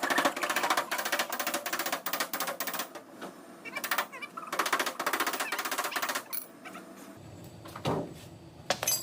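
Rapid, regular light tapping in runs of a few seconds, like a typewriter: tapping on the car's body panel during paintless dent repair. A low hum starts near the end.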